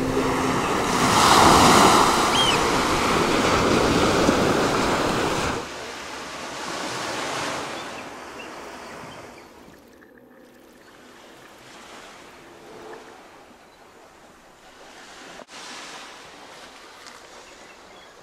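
Wind rushing over the microphone with sea water washing, cutting off abruptly after about five and a half seconds; after that only a faint, quiet hiss remains.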